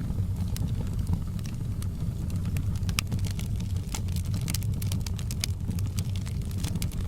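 Wood fire in a fireplace crackling: many sharp, irregular pops and snaps over a steady low rumble of the flames.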